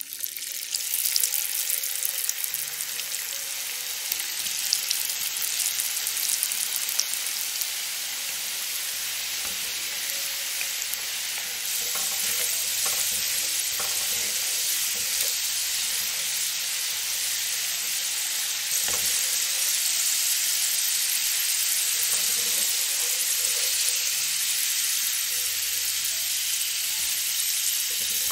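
Potato sticks dropped into hot vegetable oil, which starts sizzling suddenly and keeps frying with a steady hiss. It gets a little louder about twelve seconds in, and a spatula stirring the fries makes a few faint clicks.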